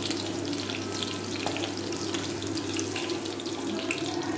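Green chillies deep-frying in hot oil in an aluminium kadhai: a steady sizzle with many small crackles throughout.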